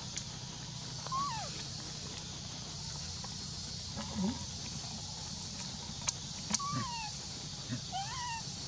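Macaques calling: a few short, squeaky coos that arch up and down in pitch, heard about a second in and twice more near the end, over a steady high hiss, with a few faint clicks.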